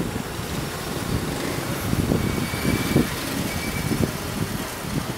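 Road traffic on a rain-wet city street: cars and motorbikes running past, with tyre noise on the wet road. A faint thin high whine comes in briefly about two seconds in.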